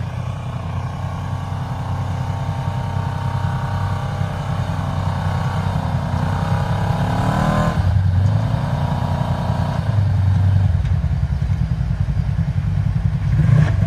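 Side-by-side UTV engine working under load while the vehicle creeps forward in low gear with the front differential lock engaged. The revs climb for a couple of seconds about halfway through, fall back sharply, and rise briefly again later.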